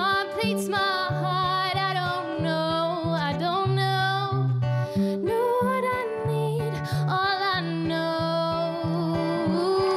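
A woman singing long, wavering held notes, accompanied by her own acoustic guitar.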